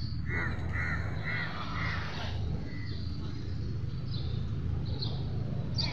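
A crow cawing four times, about half a second apart, followed by a few fainter higher calls, over a steady low hum.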